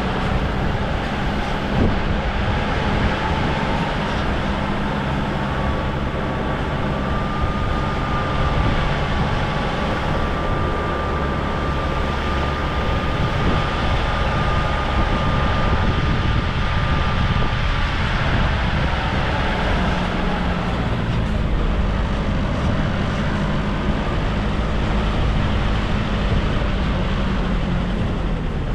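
A vehicle on the move: steady engine and road rumble, with a faint high whine for a stretch in the middle.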